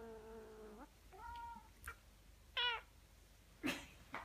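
A cat protesting at being lain on by another cat: a low, drawn-out growl that breaks off about a second in, then two short complaining meows and a loud hiss near the end.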